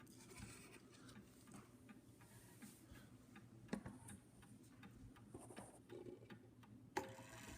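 1916 Seth Thomas Adamantine mantel clock ticking faintly and steadily. Near the end a sharp click is followed by a faint ringing tone.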